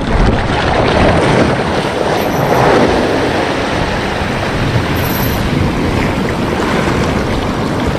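Wind buffeting the microphone over waves washing against the shore, a steady noisy rush with a low rumble.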